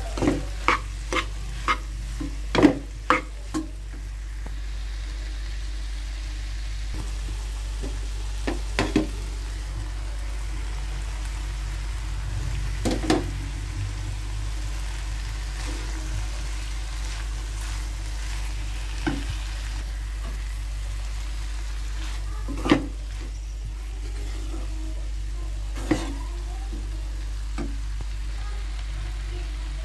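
A steel spoon stirring vegetables in a frying pan over a steady frying sizzle, with sharp clinks of the spoon against the pan: a quick run of them in the first few seconds, then single ones scattered through the rest.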